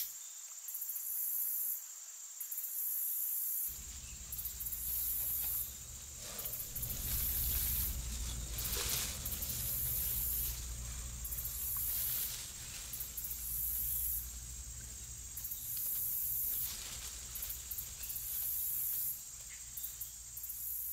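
Woodland ambience of insects chirring high and hissy in pulses roughly every two seconds. A low rumble joins about four seconds in.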